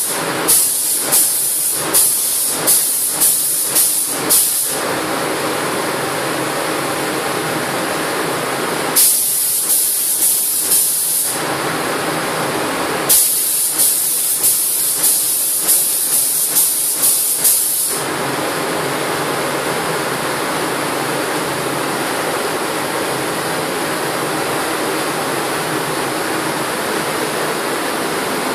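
Gravity-feed paint spray gun hissing in three spells of quick trigger pulses, about two a second, atomising paint with compressed air. Under it runs a steady rushing noise.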